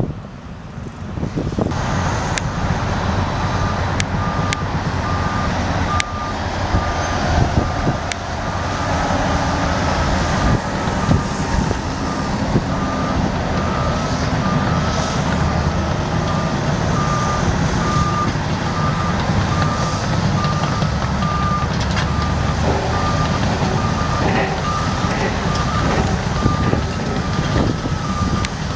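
Liebherr TA 230 articulated dump truck's diesel engine running, with its reversing alarm beeping in a steady, even rhythm from about a third of the way in. A few sharp knocks come in the first several seconds.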